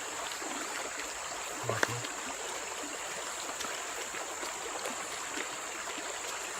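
Stream water running steadily, with a single short click a little under two seconds in.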